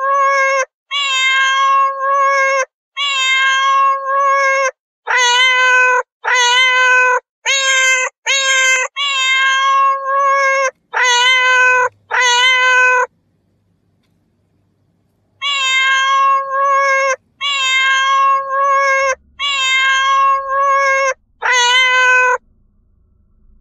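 Domestic cat meowing over and over, about twenty drawn-out, even-pitched meows in quick succession, with a break of about two seconds midway.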